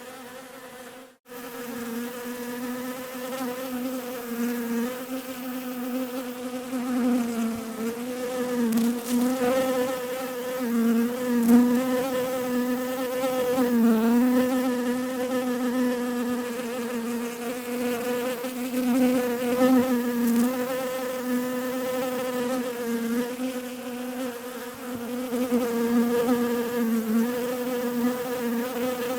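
Bees buzzing in a steady, overlapping drone whose pitch wavers slightly. The sound cuts out briefly about a second in.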